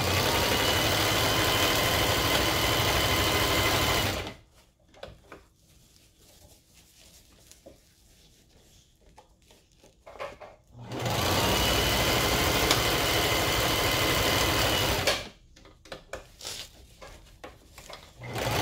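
Electric sewing machine stitching a seam in fabric, in two runs of about four seconds each, stopping in between with a few small clicks and rustles as the fabric is repositioned by hand. It starts up again right at the end.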